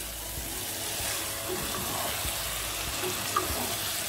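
Chicken chukka sizzling in a nonstick pan while a wooden spatula stirs and scrapes through it, the gravy reducing almost dry. There is one light tap about three and a half seconds in.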